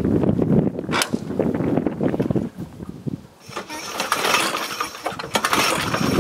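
Briggs & Stratton Titanium 46S lawn mower engine pulled over twice on its recoil starter, the first pull over about the first two seconds and the second from about halfway. The engine cranks but does not fire, because the spark plug lead is disconnected.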